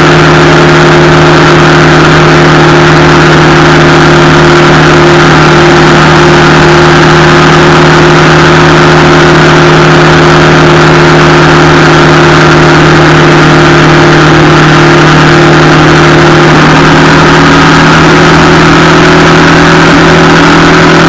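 Harley-Davidson Street Rod 750's liquid-cooled V-twin engine running at a steady cruise, very loud and close to the microphone, with wind and road noise over it.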